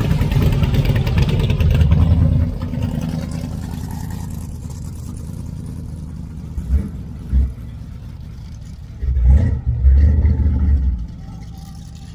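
The supercharged engine of a blown Pontiac Firebird running loudly, strongest in the first two and a half seconds, with a few short low surges later on.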